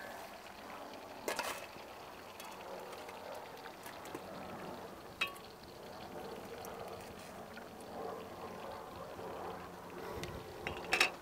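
Metal tongs and a knife working through freshly deep-fried food on a plate: a few light clinks and scrapes, one with a short metallic ring about five seconds in, over a faint steady crackle of the hot fried food.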